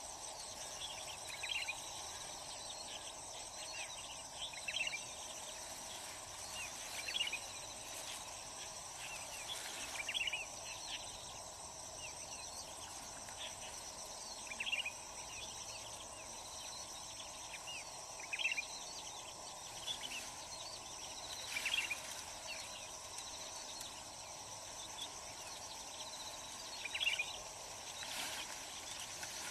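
Steady, high-pitched trilling of an insect chorus, with short sharp sounds every one to three seconds.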